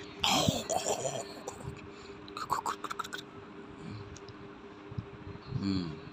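Kitten play-biting and clawing at a finger: a quick cluster of soft clicks and scratches about two and a half seconds in, with a brief murmured voice near the start and again near the end over a faint steady hum.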